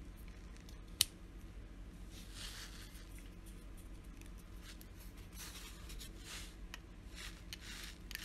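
Small parts of a PenBBS 456 vacuum-filler fountain pen being handled and worked: one sharp click about a second in, then faint scraping and rubbing as the clear barrel and metal plunger parts are turned and fitted together.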